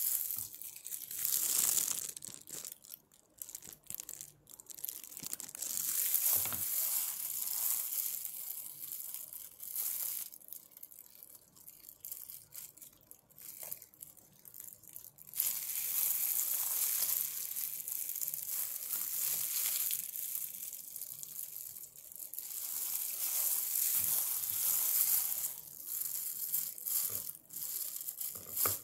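Fresh pandan leaves and then a bunch of watercress being handled and cut with scissors: crisp rustling and crinkling of the leaves, coming and going in stretches, with sharp scissor snips through the watercress near the end.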